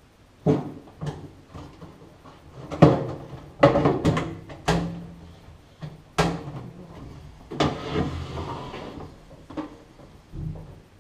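Sheet-metal microwave casing being fitted back over the chassis: a series of sharp knocks and clanks as the cover is pushed and shifted into place, with a longer scraping slide about eight seconds in and a dull thump near the end as the microwave is moved on the countertop.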